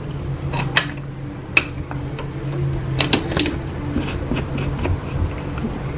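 Scattered metal clicks and clinks, with a cluster about three seconds in, as a pressure cooker's clamp-bar lid is pressed shut and its whistle weight is fitted onto the vent. A steady low hum runs underneath.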